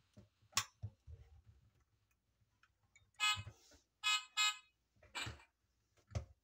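Built-in sound chip of a 1/32 die-cast Toyota RAV4 model sounding three tinny electronic buzzing tones through its small speaker, one longer then two short in quick succession. Sharp little clicks come before and after them as its doors are opened and shut.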